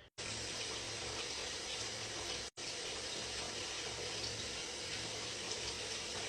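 Water running steadily from a bathroom sink tap, drawn to rinse a newborn off after her soap wash, with a brief break about two and a half seconds in.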